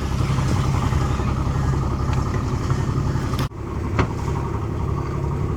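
An engine running steadily with a deep drone. About three and a half seconds in the sound drops out abruptly, and a sharp click follows half a second later.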